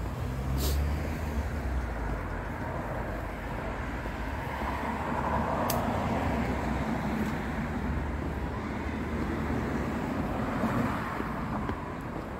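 Road traffic running steadily, with a vehicle passing and swelling loudest near the middle. Two brief sharp clicks, one about a second in and one about six seconds in.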